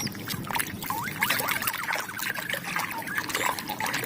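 Water splashing and trickling as a plastic toy is swished and rinsed in a basin of water, with small drips and bubbling.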